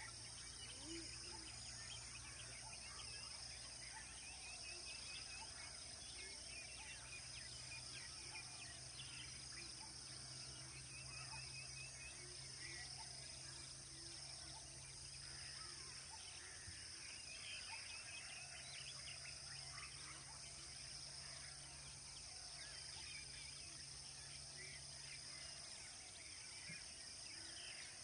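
Faint outdoor ambience of many birds chirping and trilling, over a steady high-pitched hiss. A low steady hum drops out briefly near the middle and stops near the end.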